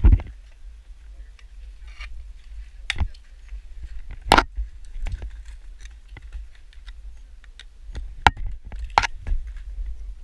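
Ice tools and crampons knocking and scraping on rock and ice during mixed climbing: a scatter of sharp clicks and knocks, with four louder strikes, the loudest about four seconds in.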